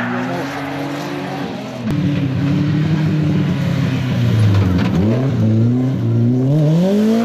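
Rally car engines revving hard, their pitch climbing and dropping through gear changes and lifts off the throttle. About two seconds in the sound changes abruptly to a louder engine, which dips, climbs again and falls near the end.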